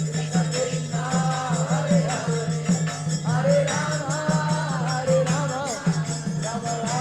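Congregational kirtan: a group singing a devotional chant over a quick, steady beat of mridanga drums, with jingling kartals (small hand cymbals).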